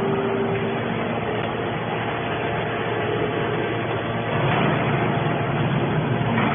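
Hydraulic aluminium can baler running: a steady mechanical hum with a few held tones, growing a little louder about four and a half seconds in.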